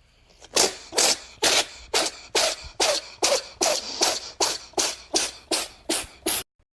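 A cat sneezing over and over in a rapid fit: about fifteen short, sharp sneezes, two or three a second, starting about half a second in.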